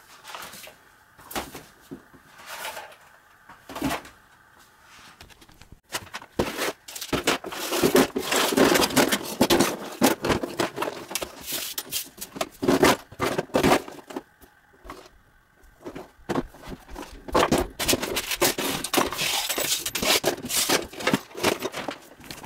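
Small mixed objects clattering, knocking and scraping as they are tossed and slid off a plastic folding table into a clear plastic storage tub. There are a few scattered knocks at first, then a dense, busy clatter from about six seconds in, with a short lull about two-thirds of the way through.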